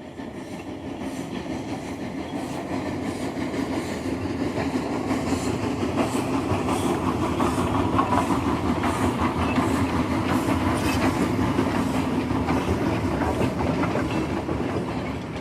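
A train running on rails with a steady clickety-clack. It grows louder over the first half, then slowly fades.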